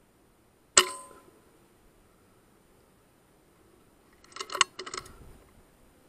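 A single sharp shot from a .177 FX Wildcat air rifle about a second in, with a brief metallic ring. About four seconds in comes a quick run of mechanical clicks as the rifle's cocking lever is cycled to load the next pellet.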